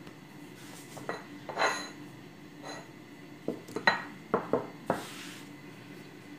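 A wooden rolling pin and kitchenware knocking and clinking on a hard countertop as dough is rolled out. There is a ringing clink about one and a half seconds in and a quick cluster of sharp knocks from about three and a half to five seconds in, over a steady low hum.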